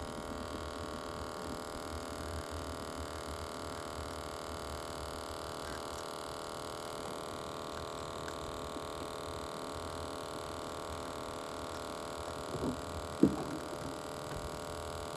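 A steady motor hum holding several even tones, with a short sharp knock about 13 seconds in.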